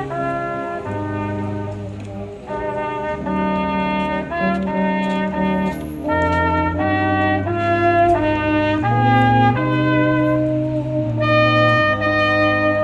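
Background instrumental music with a brass-like lead melody over a bass line, notes changing about twice a second.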